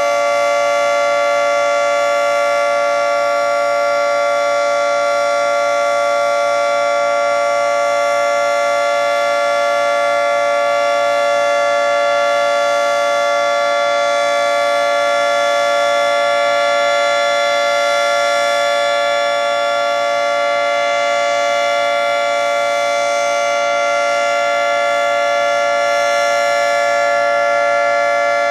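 Federal Signal 3T22 three-tone electromechanical outdoor warning siren sounding its steady full-alert signal: a loud chord of several tones held at full pitch, with a slight dip in level about two-thirds of the way through.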